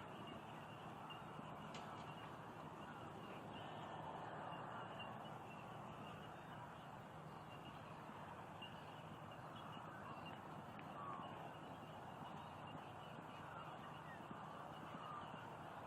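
Faint steady outdoor background noise with scattered short, distant bird calls.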